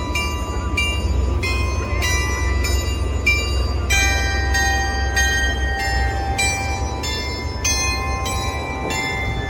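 Train running with a steady low rumble, under a bell-like chiming melody of notes struck about twice a second.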